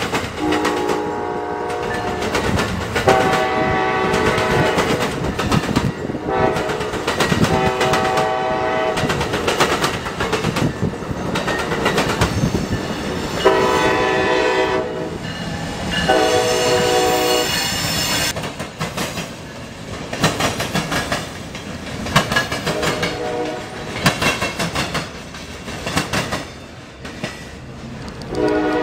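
Locomotive horns blowing repeated blasts, some short and some several seconds long, over the clickety-clack of a passing train's wheels on the rails.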